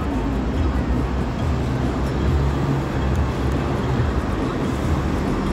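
City street traffic noise: a vehicle engine running with a steady low hum over the general sound of passing traffic.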